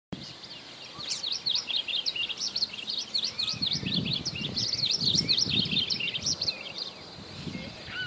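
Many small songbirds chirping rapidly and continuously in a dense, high chorus, with a few lower arched whistled notes. A low, muffled rumble runs through the middle.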